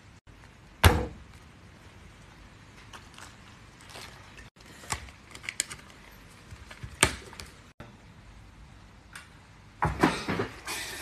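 A plastic drink lid being pushed down onto a paper soft-drink cup: a series of sharp plastic clicks and taps, the loudest about a second in, with another cluster of knocks near the end.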